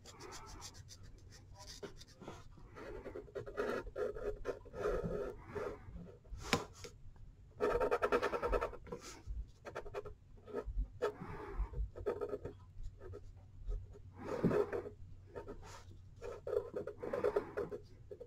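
Colouring pencil scratching on paper in a run of irregular back-and-forth strokes as an area is shaded in dark green.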